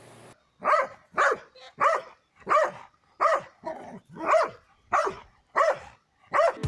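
A dog barking repeatedly, about ten barks at a steady pace.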